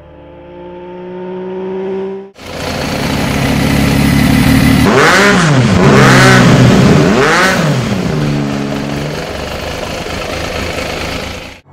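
Benelli TNT 1130 Cafe Racer's 1130 cc three-cylinder engine revved in neutral: it idles, is blipped three times in quick succession with the revs rising and falling each time, then settles back to a steady idle.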